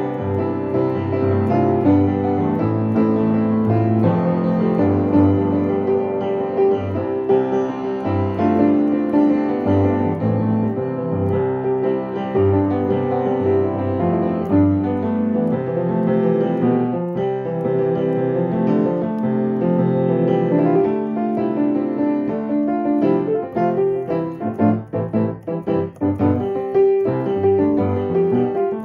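Piano played solo: a continuous piece of chords with a melody over them, with a stretch of short, separated notes and brief gaps about three quarters of the way through.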